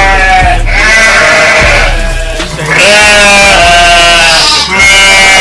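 Sheep bleating sound effect laid over a hip-hop beat: several wavering bleats about a second long each, one after another, over a steady bass.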